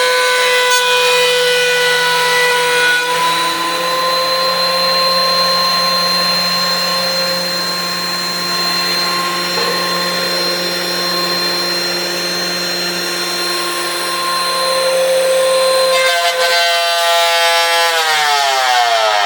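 DeWalt thickness planer running with a steady whine while planing an old stair tread. Near the end its pitch falls as the motor and cutterhead wind down.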